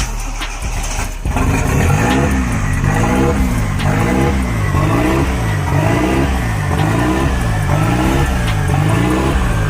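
Toyota 4E-FTE turbocharged four-cylinder engine being revved over and over, its pitch rising and falling about once a second from about a second in.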